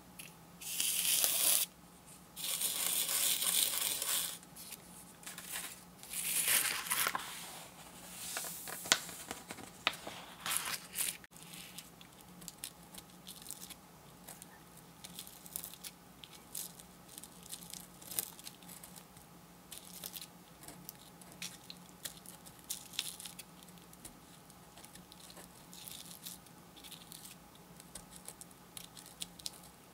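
Coloured craft sand spilling from a plastic spoon onto sticky sand-art paper, hissing in several loud bursts through the first third. After that, a plastic stylus picks and peels the paper's backing film, making faint scratches and small clicks.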